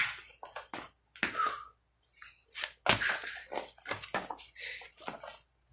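Quick, forceful breaths from a man straining through weight-bench leg exercises, with a sharp knock about three seconds in.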